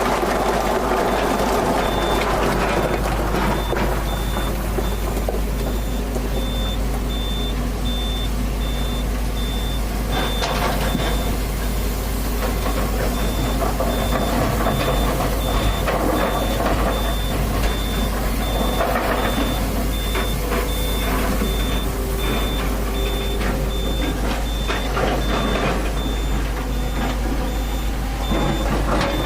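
Excavator's diesel engine running with its warning alarm beeping over it, a high beep repeating at an even pace.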